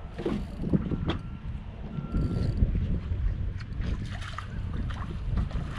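Wind buffeting the microphone on an open skiff, a steady low rumble, with a few light knocks and clicks.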